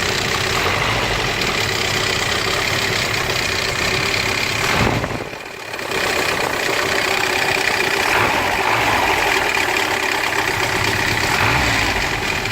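Mercedes-Benz M115 four-cylinder petrol engine running steadily, with the noise the owner puts down to the timing chain. The sound drops and goes muffled briefly about five seconds in.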